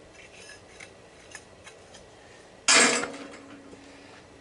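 A few light metal clinks, then about two and a half seconds in a single loud metallic clang that rings on for about a second as a piece of scrap metal is thrown down.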